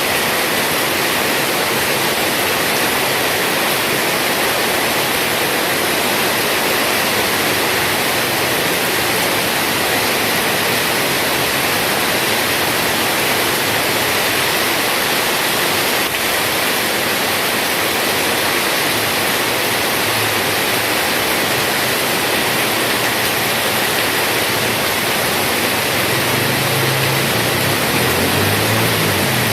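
Heavy rain pouring down in a steady, even hiss. In the last few seconds a low hum comes in underneath.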